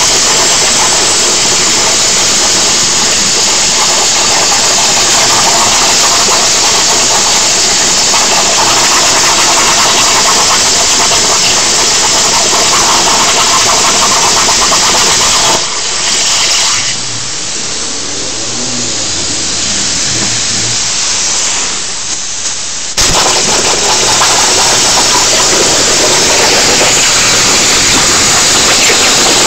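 CNC plasma cutter torch cutting sheet steel: a loud, steady hissing arc. It drops away about sixteen seconds in and starts again abruptly about seven seconds later.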